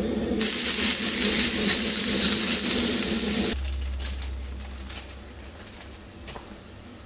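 Shredded yacon going into hot oil in a small frying pan on a gas stove, setting off loud sizzling about half a second in that cuts off suddenly after about three seconds. After that it is much quieter, with a few light clicks.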